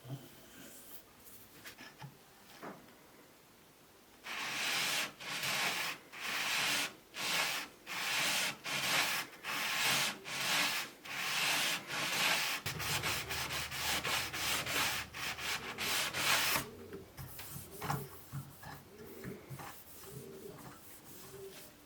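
Hand sanding: sandpaper rubbed back and forth in quick, even strokes, about two a second, starting some four seconds in and stopping after about twelve seconds. Lighter rubbing and small handling knocks follow.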